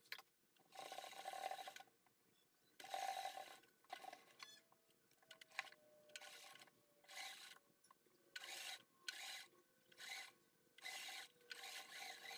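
Sewing machine stitching in short runs, about a dozen spurts of a second or less with brief pauses between, as a beaded lace trim is sewn along a fabric edge.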